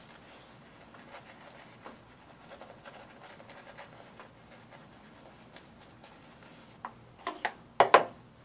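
Shaving brush scrubbing lather over a bearded face, soft repeated brushing strokes. Near the end, several sharp knocks and clatters come close together, louder than the brushing.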